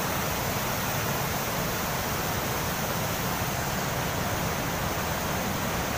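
Steady rushing of a swollen river in flood, fast whitewater churning over boulders.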